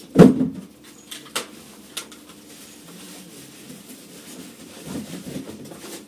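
A mini stepper squeaking and creaking as it is stepped on, loudest just at the start and again around five seconds in, with a few sharp light clicks in the first two seconds.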